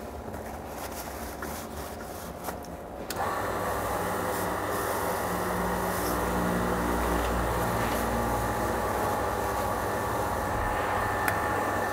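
Electric motor of a Timken lubricant wear-test rig switching on about three seconds in and running steadily, spinning the test ring while it is wiped clean with brake cleaner. A few short clicks come before it starts.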